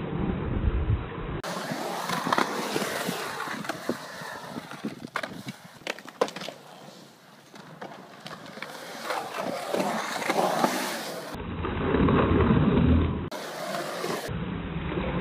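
Skateboard wheels rolling and carving on a concrete bowl, with a few sharp clacks of the board near the middle.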